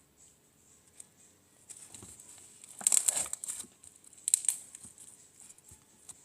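Crinkling, crackling handling noise in three short bursts, the loudest about three seconds in.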